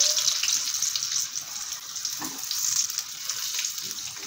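Batter-coated stuffed green chillies deep-frying in hot oil: a steady sizzle, loudest just after the fritters are turned and easing off over the next few seconds.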